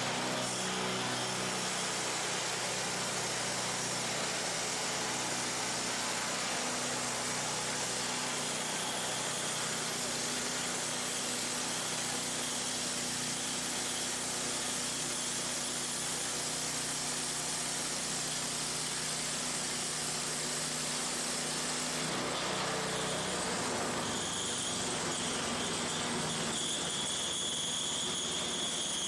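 Harbor Freight band saw mill running: its small gasoline engine drones steadily while the band blade saws lengthwise through an old barn beam. About 22 seconds in the sound changes as the cut ends, and a high steady whine from the free-running blade takes over.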